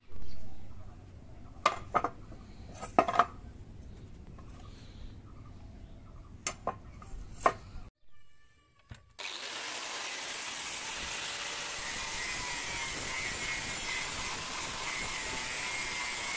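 A few light knocks as a steel blade is handled on a wooden plank. After a brief break, an angle grinder with a flap disc starts grinding steadily on the spring-steel blade of a date-palm tapping knife from about nine seconds in.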